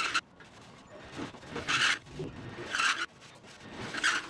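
Drill-driven countersink cutter biting into aluminium rivet holes in a wing skin and spar, in three short bursts about a second apart, one hole after another.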